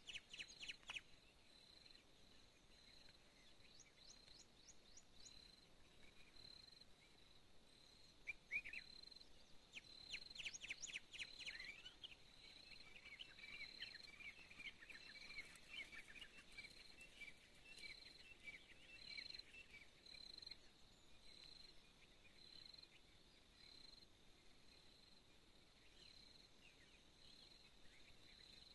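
Faint outdoor ambience: an insect, probably a cricket, chirps in even, regular pulses throughout. Birds chirp and twitter over it, busiest in the middle stretch.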